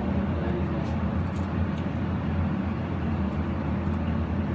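Steady low hum of kitchen machinery, with a few faint taps of knives on plastic cutting boards.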